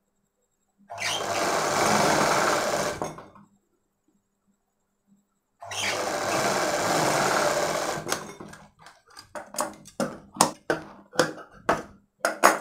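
Sewing machine stitching in two steady runs of about two and a half seconds each, with a short pause between. These are followed by a run of sharp, irregular snips from large steel tailor's shears trimming the threads.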